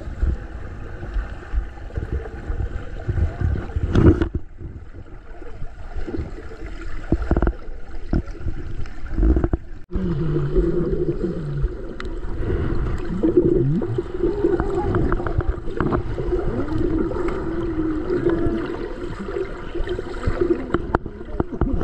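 Water gurgling and splashing over uneven low rumbling, with a humming tone that joins about halfway through.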